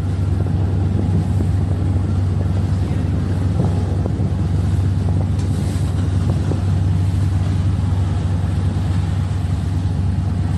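Steady low rumble of wind buffeting the microphone, mixed with the outboard engine of a small police boat running slowly on the water.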